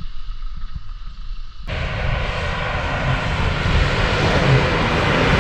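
Off-road vehicle engine rumbling low, then about a second and a half in it opens up suddenly and runs hard, growing steadily louder.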